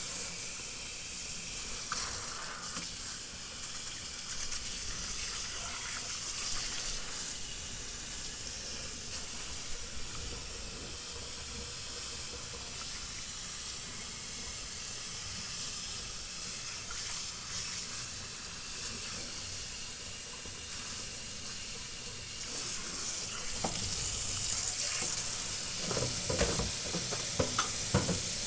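Hot water running from a kitchen tap in a steady hiss, splashing over a dishwasher filter held in the sink. Several knocks and louder splashing near the end as the filter is handled under the stream.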